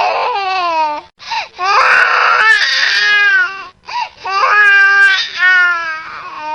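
Infant crying hard: long, loud wails one after another, each wavering in pitch, broken by short catches of breath about a second in and near the middle.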